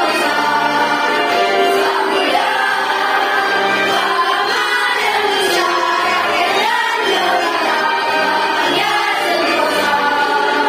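A student choir singing a school march in unison, with musical accompaniment.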